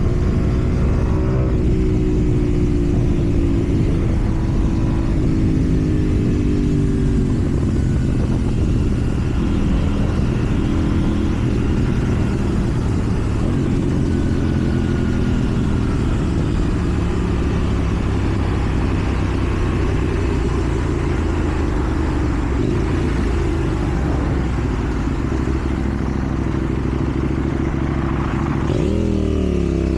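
KTM Duke 790's parallel-twin engine through a slip-on exhaust while riding. The engine note falls over the first several seconds as the bike slows, runs steadily, then revs up sharply near the end.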